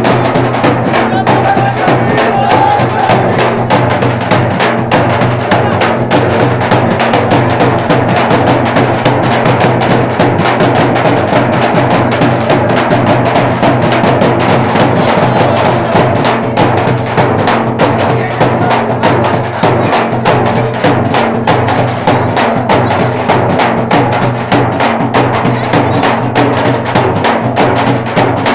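Drums played loudly in a fast, unbroken beat, with crowd voices underneath.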